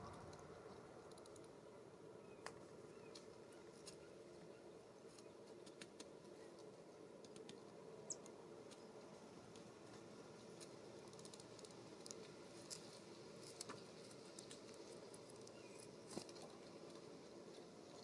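Near silence: faint outdoor room tone with scattered small soft ticks and clicks, and one brief high-pitched note about eight seconds in.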